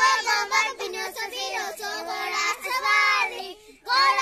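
Young girls singing a Saja festival folk song together, with a brief break between lines near the end before the singing picks up again.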